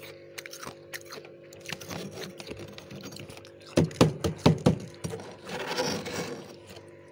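Dry, powdery freezer frost crunching: scattered small crackles, a run of about five loud crunches about four seconds in, then a metal spoon scraping through the frost, over a steady low hum.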